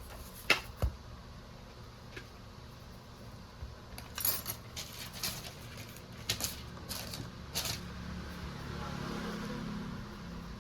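Sharp clicks and light taps of small work on a repair bench: two in the first second, then a run of them from about four seconds in. A low hum swells near the end.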